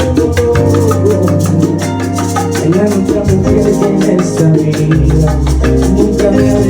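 Latin band music in a salsa style: a bass line under melodic instruments, with a shaker and percussion keeping a quick, steady beat.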